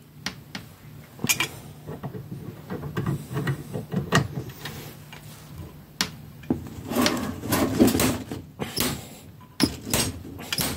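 Click-type torque wrench tightening the camshaft pulley nut to about 70 N·m: a run of irregular sharp metallic clicks and clinks, busiest in the second half.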